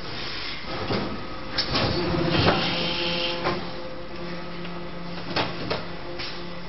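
Toothbrush injection moulding machine running with a steady hum, broken by several sharp clanks and clicks, the loudest about two and a half seconds in and two more close together near the end.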